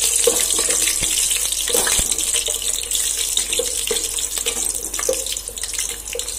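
Bay leaves, cinnamon and green chillies sizzling in hot oil in an aluminium pot, a steady high hiss. A wooden spatula stirring them scrapes and taps against the pot now and then.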